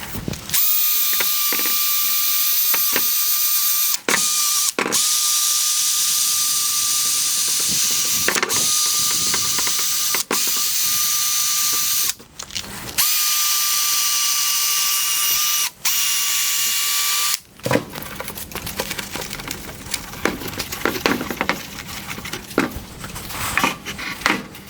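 Power drill spinning a 3M P3000 sanding disc against a plastic headlight lens: a steady high whine, stopping briefly several times. About 17 seconds in it stops, and quieter irregular clicks and rattles of handling follow.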